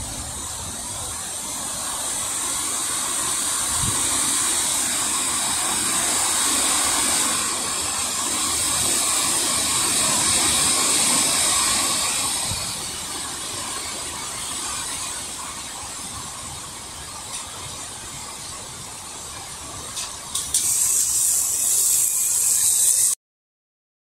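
Storm wind rushing through leafy trees, a steady hiss that swells and then eases off over several seconds. Near the end it turns into a louder, brighter hiss with a few knocks, then cuts off suddenly.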